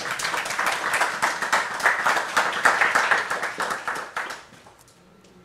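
Audience applauding: a dense patter of many hands clapping that dies away about four seconds in.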